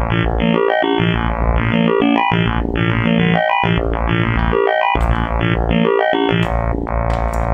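Make Noise Spectraphon spectral oscillator driven by stepped, clocked modulation: a quick run of bright pitched tones whose spectrum changes in steps every fraction of a second, over a deep low tone.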